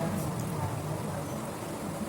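Steady background hiss with faint distant voices and a few small clicks.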